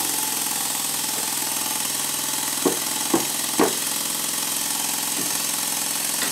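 Stuart Double 10 twin-cylinder model steam engine running fast on compressed air with a steady hiss. A little past halfway, three sharp mallet taps land on the end of the spinning crankshaft, with a fainter fourth later; they are knocking the bent crankshaft straight.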